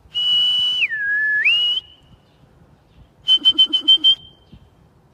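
Whistling: one long high whistled note that drops to a lower pitch and climbs back up, then, after a pause, a quick run of about six short high whistled pips ending in a brief held note.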